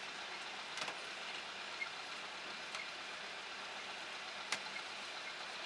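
A scraper pushing wet pomegranate arils along a stainless-steel chute into a bin, against a steady noise of processing machinery. A few sharp knocks of the scraper against the steel come about a second in, again near two seconds, and once more past the four-second mark.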